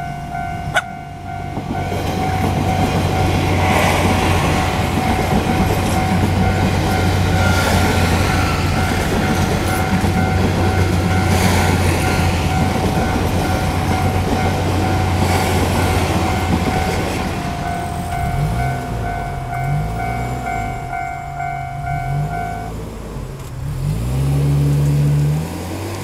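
A level-crossing alarm rings steadily while a Taiwan Railways DR3000 diesel multiple unit express passes: a low diesel drone with a rush of wheels on rails that swells every few seconds as each car goes by. After the train has gone, a small truck's engine revs up and down as it drives off, and the alarm stops near the end.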